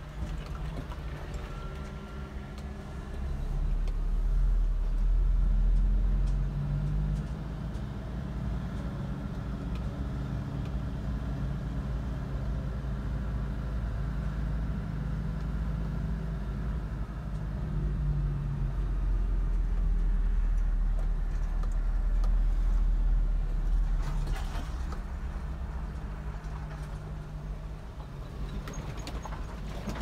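Heavy vehicle engine running steadily at a low pitch, swelling louder twice for several seconds, as when revved under load.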